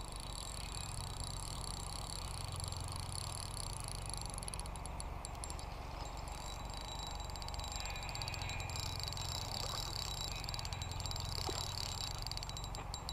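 Outdoor ambience: a steady high chirring chorus of small creatures, with a low rumble underneath.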